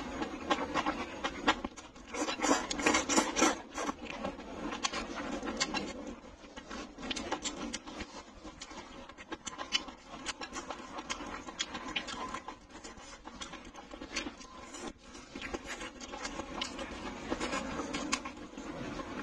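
Close-up eating sounds: glass noodles slurped and chewed, with many irregular wet clicks and mouth smacks, loudest a couple of seconds in.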